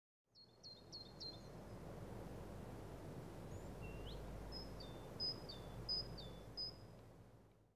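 Outdoor ambience: a steady low rumble with birds calling over it, a quick run of four chirps near the start, then a single rising call and a string of short high calls from about halfway through. The ambience fades in and fades out.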